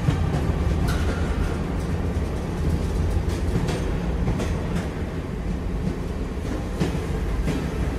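Train running on the rails: a steady low rumble with a few sharp clacks of the wheels over rail joints.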